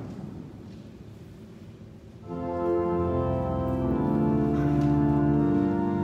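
An organ comes in about two seconds in and plays slow, sustained chords that ring through a large church.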